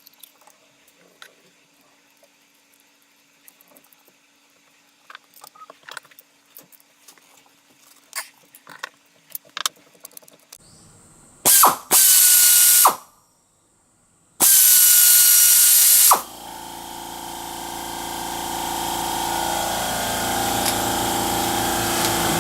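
Freshly overhauled Kuken KR-153 air ratchet, after a few light clicks of handling, run twice in bursts of about a second and a half, each a loud hiss of air with a high steady whine that drops as it stops. Then a steady hiss with humming tones sets in and slowly grows louder.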